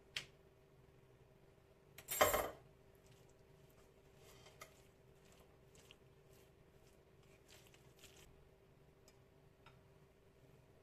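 A metal teaspoon clinks in a short clatter about two seconds in, then a silicone spatula scrapes faintly and intermittently as it stirs minced beef and rice in a glass bowl.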